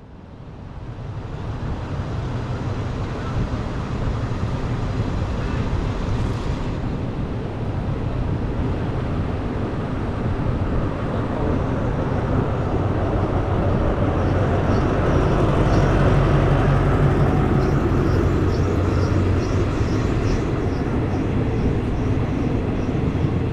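Diesel-electric freight train approaching and passing close by, its locomotive's engine drone building to its loudest as the locomotive goes past, then the rumble of the cement tank wagons rolling by with a run of short high clicks.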